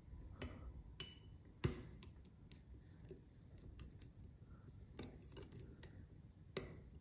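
Sharp little metallic clicks and ticks of a Lishi-style 2-in-1 pick working the pins inside a Yale-profile 3-star cylinder lock under light tension, coming irregularly, with louder clicks about half a second, one and one and a half seconds in, again at five seconds and near the end.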